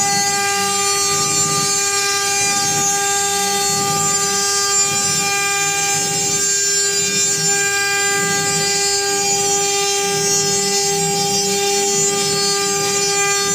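CNC machine running with a steady, unchanging high whine, over a rougher fluctuating rumble lower down.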